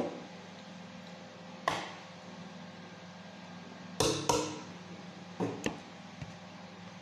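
Scattered sharp knocks and clinks of a ladle and utensils against a large metal pot while food is dished into paper cups, the loudest a pair about four seconds in, over a steady low hum.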